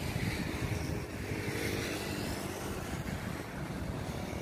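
Road traffic going by, motorcycles and cars, as a steady noise with a low rumble, and a faint engine hum that swells and fades around the middle.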